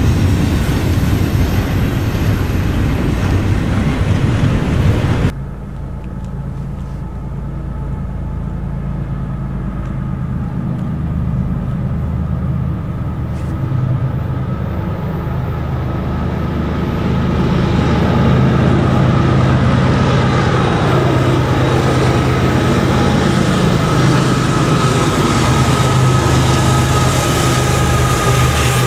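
A double-stack container train rolls past with steady wheel-on-rail noise. About five seconds in, it cuts to a CSX manifest freight train: the low rumble of its diesel locomotives grows steadily louder as it approaches, then holds loud as the engines pass, with a steady high whine above.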